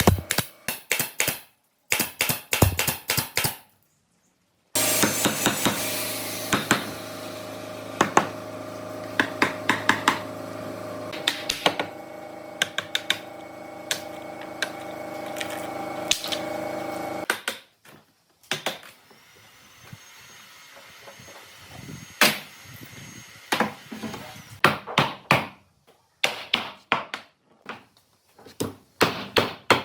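Repeated sharp knocks and taps on wood, as from hammering in a woodworking shop. A machine runs steadily for about twelve seconds in the middle, and the sound cuts off abruptly several times.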